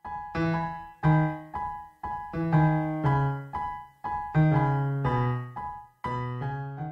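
Intro music played on piano: a short, bright tune of struck chords and melody notes, about two a second, each note dying away after it is struck.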